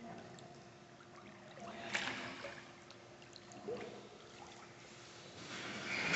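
Faint lapping and trickling of pool water as a person moves and turns in it, with a sharp tap about two seconds in and a smaller one a little before four seconds.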